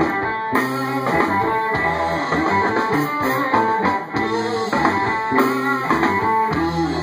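Live band playing the instrumental intro of an original song, led by electric guitar over a low bass line, with no singing yet.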